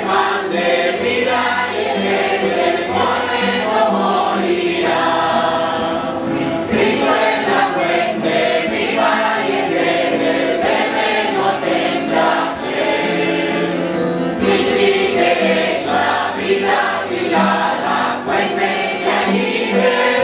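A church congregation of men and women singing a worship song together, many voices continuing without a break.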